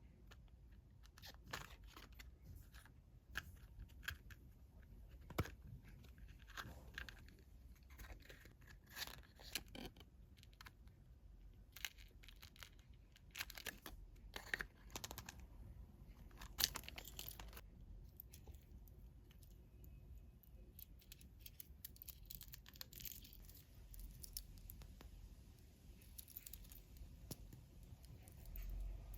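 Plastic packaging crinkling and tearing, with scattered small clicks and taps of handling, as gacha toys are unpacked; faint and irregular, with one sharper click midway.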